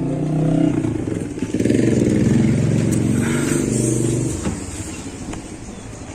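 A road vehicle's engine running close by, loud for about the first four seconds and then fading away.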